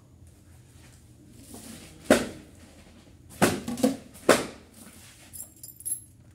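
A few short knocks and bumps, one about two seconds in and a cluster between three and a half and four and a half seconds, followed by faint light clicks near the end.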